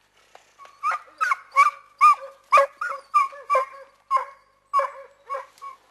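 Hunting dog barking in a rapid series of about a dozen sharp barks, roughly two a second: a hound giving voice as it chases a wild boar.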